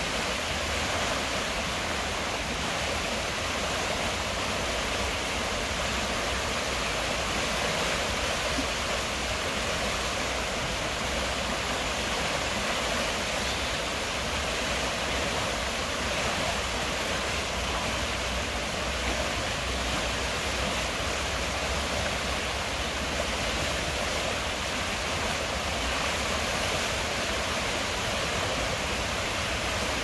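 River water flowing, a steady, even rushing with no breaks.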